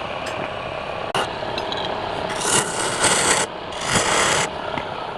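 Wood lathe running steadily while a turning tool cuts into the spinning wood in two loud scraping passes, the first about two seconds in and the second just after it.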